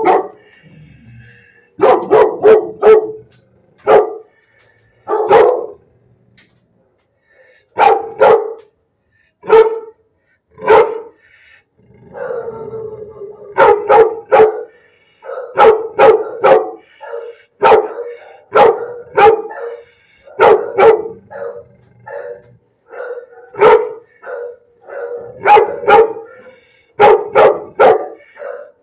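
A dog barking loudly and repeatedly in short clusters of two to four barks with brief pauses between them, with one longer drawn-out howling call near the middle.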